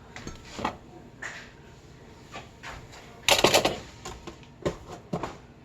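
Clicks and knocks of a container being opened and handled, with one loud clatter about three seconds in.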